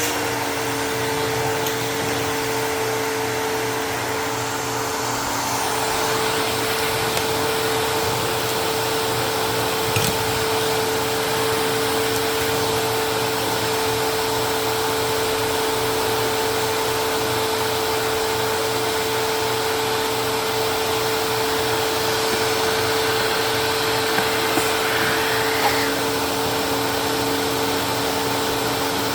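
Dust Care Evolution Prestige 6502Z upright vacuum cleaner running steadily, its motor giving an even rushing whine with a couple of steady tones, and a few faint ticks.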